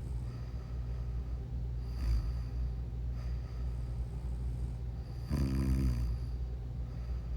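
A person snoring in sleep: a faint breath about two seconds in, then a loud, pitched snore lasting under a second about five seconds in, over a steady low hum.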